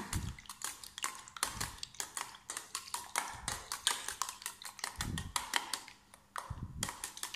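Metal spoon beating eggs and chopped boiled chicken in a stainless steel bowl: quick, irregular clinks and taps of the spoon against the bowl, with a few duller knocks.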